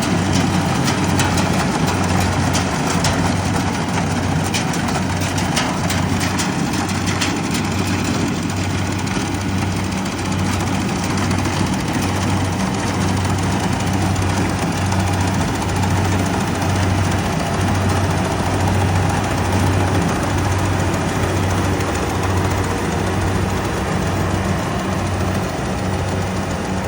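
Rice harvester's engine running steadily under load, with a pulsing low hum and a scatter of rattling clicks over the first several seconds.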